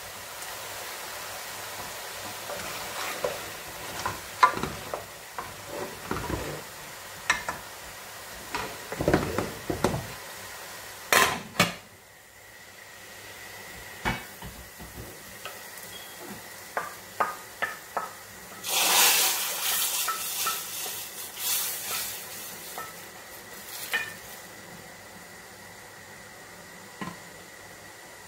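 Wooden spoons stirring and scraping in aluminium cooking pots, with scattered knocks and clinks of the pots and a metal lid. A few seconds of sizzling come about two-thirds of the way through.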